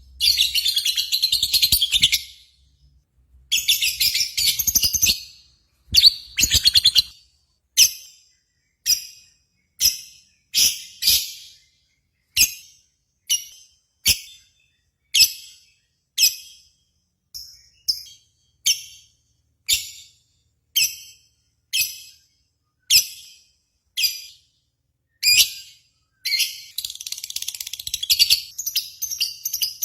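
Recorded bird song in high, shrill notes. Two bursts of rapid chattering come first, then a long run of single sharp chirps about one a second, and dense chattering starts again near the end.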